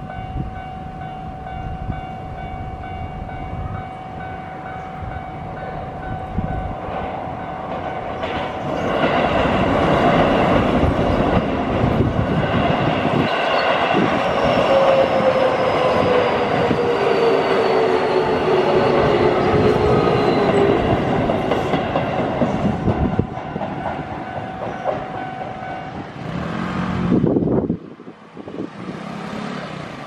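Japanese level-crossing warning bells ringing steadily while a Keio Line commuter train passes, the train's wheels loud on the rails for about fourteen seconds with a falling whine partway through. The bells stop a few seconds before the end, and a road vehicle passes just after.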